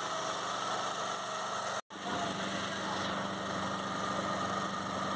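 Boat engine running with a steady hum that drops out for an instant about two seconds in, then carries on.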